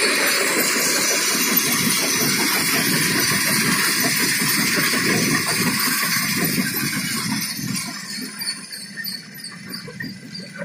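Stone crusher plant running: the crusher and its conveyor belts make a dense, steady mechanical noise, which drops noticeably in loudness about eight seconds in.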